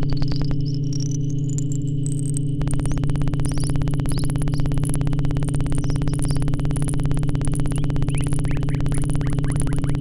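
Synthesized electronic sound: a steady low drone with a fast, even pulse, and a high sine-like tone that rises over the first two seconds and then holds, with short chirps scattered around it. A denser layer of sound comes in about two and a half seconds in.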